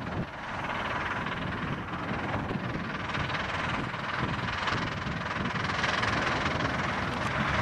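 15-inch-gauge steam locomotive hauling a train of coaches, its exhaust and running noise growing slowly louder as it approaches.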